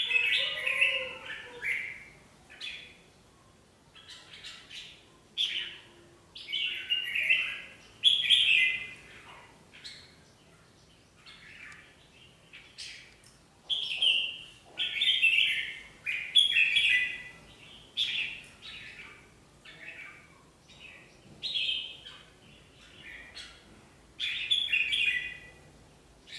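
Red-whiskered bulbuls calling in short, bright song phrases, one after another every second or two: birds in adjacent cages challenging one another.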